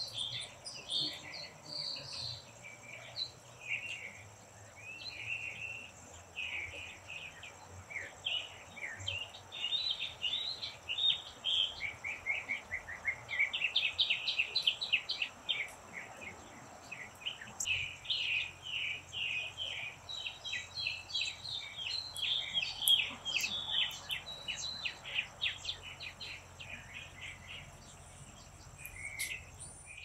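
Backyard birds singing and chirping throughout, with rapid runs of repeated notes, over a steady high insect buzz.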